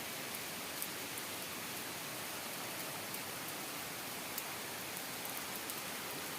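Steady heavy rain falling, an even hiss with scattered sharp drop ticks.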